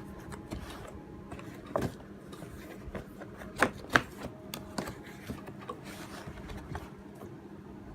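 Handling noise from a plastic drone being lifted and turned over in its carrying case: scattered knocks and clicks, the loudest about two seconds in and a pair near four seconds, with light rubbing between them, over a low steady hum.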